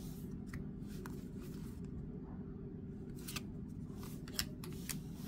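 Baseball trading cards flipped through one at a time by hand, each card sliding off the stack with a short crisp flick, several in quick succession near the end, over a steady low hum.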